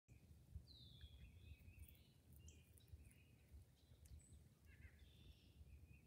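Faint woodland birdsong: scattered chirps and short whistles from several birds, with a falling whistle about a second in, over a faint low rumble.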